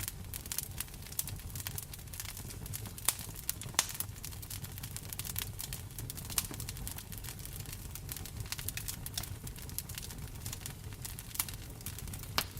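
Wood fire crackling in a fireplace, with irregular small pops and a few sharper ones about 3 and 4 seconds in and near the end, over a steady rain hiss and a low rumble.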